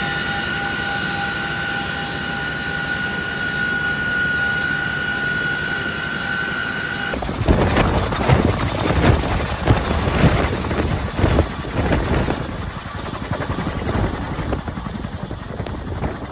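Helicopter turbine whining steadily, several high tones held over a rushing noise. About seven seconds in, it cuts abruptly to a louder, uneven rushing rumble with irregular thumps.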